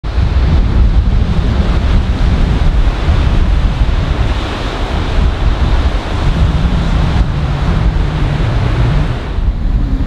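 Strong wind buffeting the microphone with a heavy low rumble, over the wash of surf breaking on a sandy beach. The higher hiss dies down near the end.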